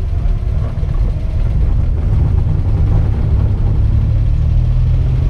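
Engine of a 1984 Daihatsu Hijet 1000, a small 1.0-litre three-cylinder, heard from inside the cab while driving: a low, steady rumble. It dips briefly around a gear change near the start, then grows a little louder about two seconds in as the van pulls on.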